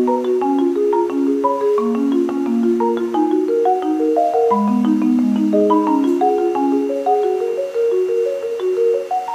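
Background music: a light melody of quick struck notes, several a second, on a mallet-like instrument, with no beat underneath.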